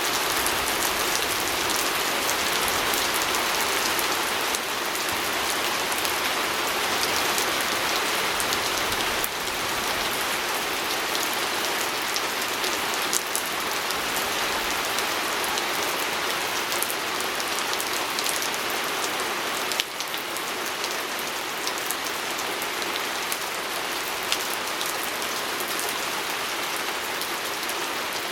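Steady rain pattering on a window pane, a constant hiss of falling rain with many fine drop ticks.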